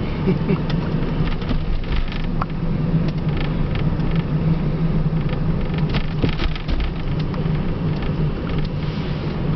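Inside the cabin of a 1987 Dodge Daytona converted to electric drive, moving slowly along a city street: steady road and tyre rumble with a low hum and scattered light clicks, and no engine note.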